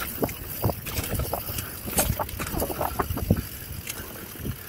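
Mountain bike rolling down a dirt singletrack: steady tyre rumble on the dirt, with scattered clicks and rattles from the bike over the bumps.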